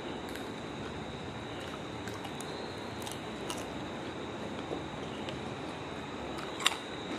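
Soft chewing and small wet mouth clicks from eating sticky, syrup-soaked jalebi, with one sharp click near the end, over a steady hiss and a faint high whine.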